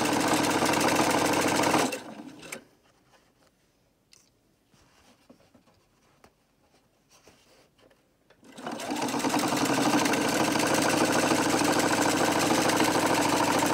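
Electric sewing machine stitching a hem. It runs steadily, stops about two seconds in, and after a pause of some six seconds with only faint small handling sounds it starts again, speeds up and runs steadily.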